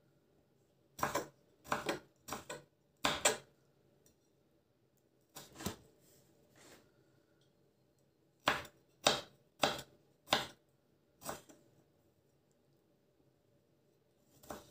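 Kitchen knife chopping tomato on a wooden cutting board: about a dozen sharp knife strikes on the board in uneven clusters with pauses between.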